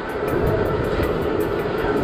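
Vekoma suspended looping coaster train climbing its lift hill: a steady mechanical hum with fast, regular clicking, and wind rumbling on the onboard microphone.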